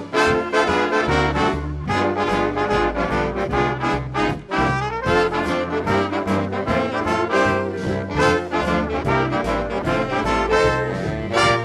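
Big band swing music, a brass section with trombones and trumpets playing over a steady beat.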